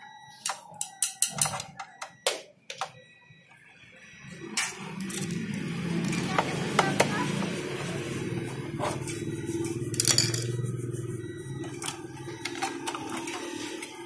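Sharp clicks and clinks of hands and a screwdriver working the steel hard-drive bracket and chassis of an opened all-in-one PC. From about four and a half seconds in, a steady low background hum runs underneath, with scattered clicks over it.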